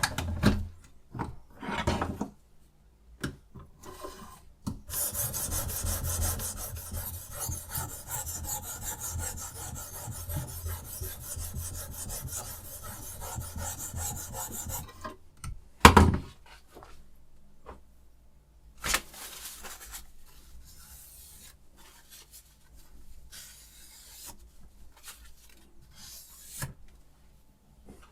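Sharpening stone of a guided knife sharpener worked quickly back and forth along a knife blade: a continuous gritty rasp for about ten seconds, then a sharp knock, and slower, quieter strokes toward the end.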